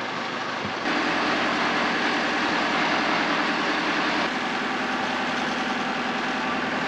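An engine idling with a steady low hum. The sound jumps louder about a second in and shifts in tone abruptly a few seconds later.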